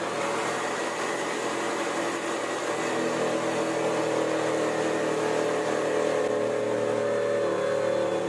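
Homemade bandsaw running steadily, its blade cutting into a plywood blank to round off a corner.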